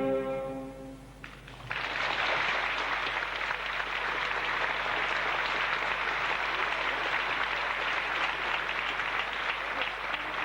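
An orchestra holds a final sustained chord that dies away, then theatre audience applause breaks out about two seconds in and carries on steadily.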